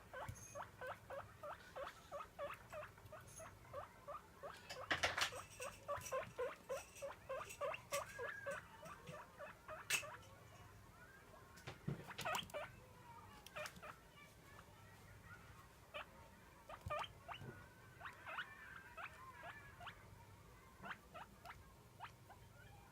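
Guinea pig wheeking: a fast run of short, high calls, about three a second, begging for food at feeding time. The calls thin out to scattered squeaks after about nine seconds, with a few sharp clicks in between.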